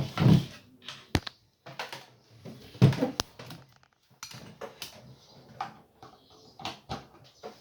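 Irregular knocks and a few sharp clicks from handling the reassembled subwoofer and its cables, the loudest knocks near the start and about three seconds in.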